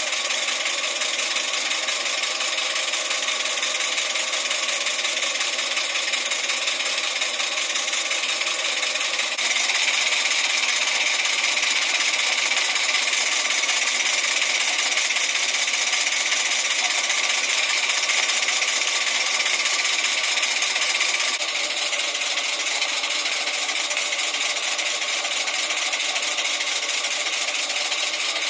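PM Research No. 7 model steam engine running fast on steam from a copper boiler: a rapid, even mechanical beat from the piston and valve gear over a steady hiss.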